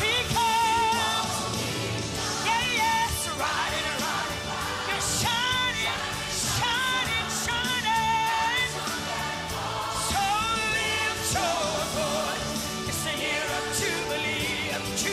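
A woman singing a gospel worship song in a high, strong voice, with wavering vibrato on held notes and quick runs between them, over instrumental backing.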